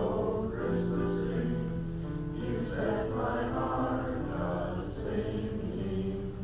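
Small church congregation singing a hymn together in held, sustained notes.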